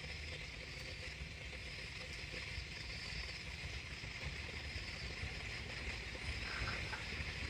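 Steady chirring of night insects, crickets among them, over a low rumble.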